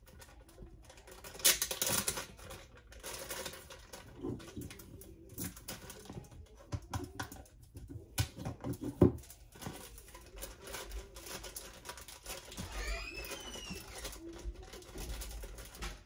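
Plastic handling sounds inside a clear plastic still air box: a zip-top bag of grain crinkling and rustling, and plastic cup lids clicking and tapping, with a few brief high squeaks near the end.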